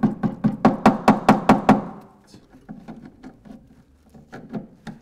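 Hammer tapping on metal, a quick even run of ringing blows about four to five a second, then a few slower, lighter taps after about two seconds. It is the sound of trying to tap out split pins on a Land Rover's steering track rod ends, which keep bending under the blows.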